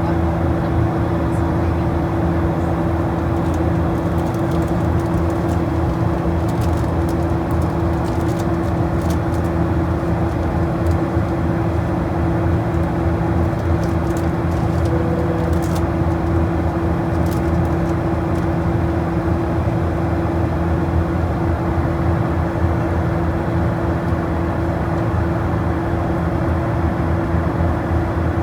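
Steady drone of an aircraft in flight heard from inside the cabin: a constant low hum with one steady tone above it, unchanging throughout.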